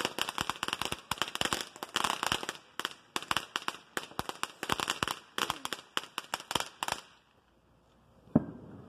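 Ground firework spraying sparks and crackling with a dense run of rapid, irregular pops, which die out about seven seconds in. A single sharp knock follows near the end.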